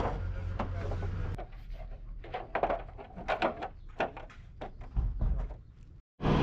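Irregular knocks and taps from the cab door and its panels being handled, over a steady low hum that stops about a second and a half in.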